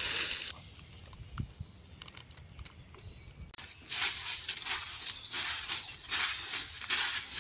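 Dry leaves or undergrowth crunching and rustling in uneven bursts. It goes quiet for about three seconds, then starts again.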